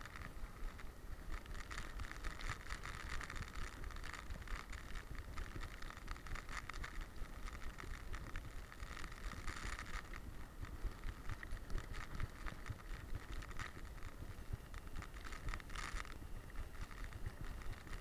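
Rapid rattling and ticking from a boxer's running stride, picked up by a camera worn on the dog's back, over a steady low wind rumble.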